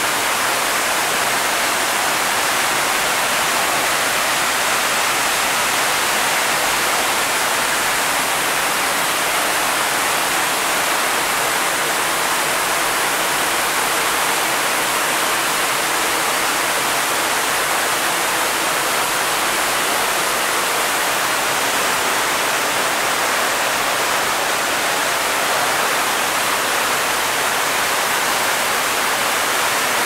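Duf waterfall pouring down a narrow rock cleft: a steady rush of falling water.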